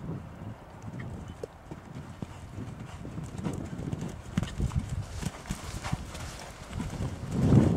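Hoofbeats of a horse cantering on dirt arena footing, a run of dull thuds that grows much louder near the end as the horse comes close.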